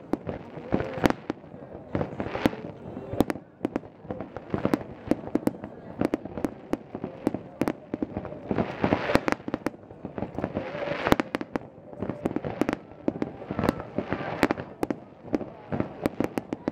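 Starmine fireworks: aerial shells launched and bursting in rapid, overlapping succession, a dense irregular series of sharp bangs, several a second.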